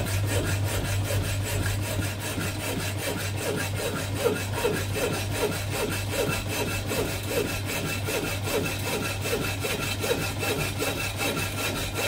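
Kennedy power hacksaw, belt-driven by a 240 V Hoover electric motor, cutting through 4 mm steel angle iron: the blade rasps back and forth at about three strokes a second over the steady hum of the motor. The freshly tensioned belt is not slipping.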